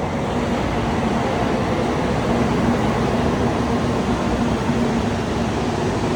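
Shinkansen bullet train running, a steady rushing noise with a faint low hum, swelling slightly in the first second.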